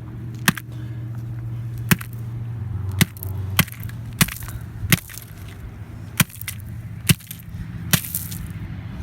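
A flip phone, opened up, being struck repeatedly: about nine sharp blows at irregular intervals of roughly a second, each a short crack of impact.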